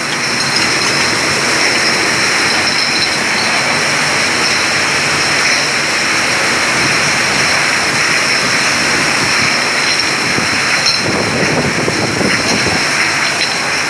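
Glass-bottle filling line running: a steady, loud machine din with two constant high whines over it.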